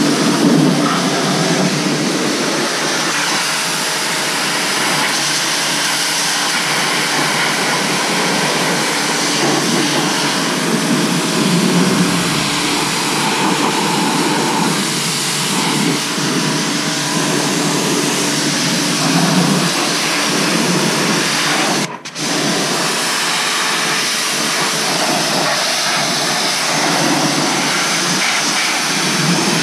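Pressure washer running, its 40-degree fan nozzle spraying water hard onto a steel excavator attachment: a loud, steady hiss of spray over the pump's hum. It cuts out for a moment about three-quarters through.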